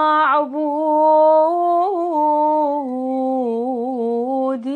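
A woman's voice chanting an Arabic prayer, drawing one syllable out into long held notes that sink slightly in pitch, with small wavering ornaments in the second half and a brief break near the end.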